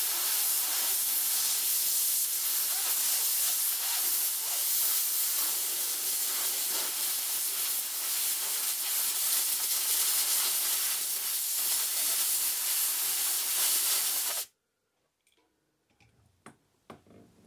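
Compressed air hissing steadily from a nozzle pressed against a LEGO pneumatic switch's moving part, blowing out the old lubricant. The hiss cuts off suddenly near the end, and a few faint clicks follow.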